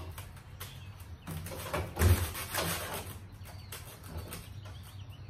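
Steel drawer of a US General rolling tool cabinet sliding on its runners and shutting with a thump about two seconds in, with light clicks of the drawer hardware before and after.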